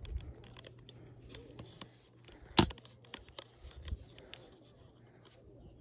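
Quiet lakeshore ambience with scattered small clicks and one sharp click about two and a half seconds in. Just after it comes a short run of high, quickly repeated bird chirps.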